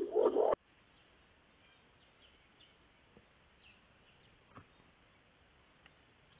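A low pigeon coo cuts off suddenly with a sharp click about half a second in. Then faint forest ambience follows, with a few soft high bird chirps and light ticks.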